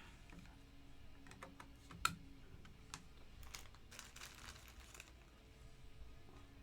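Faint, irregular clicks of typing on a computer keyboard, with one sharper click about two seconds in and a quick run of keystrokes a little later.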